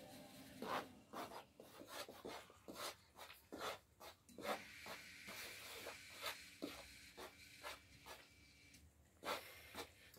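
Hands mixing and kneading bread dough in a metal basin: a faint run of short, irregular rubbing and pressing sounds.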